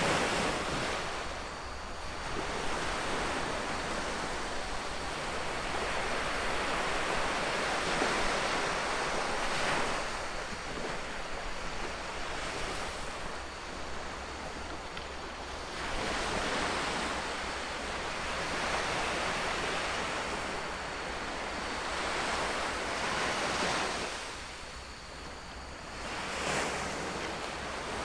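Sea surf washing in on the shore, swelling and fading every few seconds, with some wind on the microphone.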